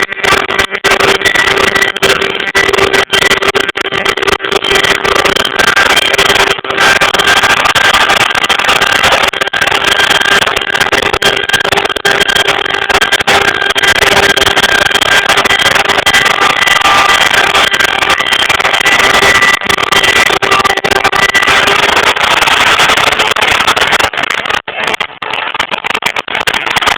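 Homebuilt CNC router running: loud, steady motor noise with several whining tones that shift in pitch and come and go as the stepper motors drive the axes.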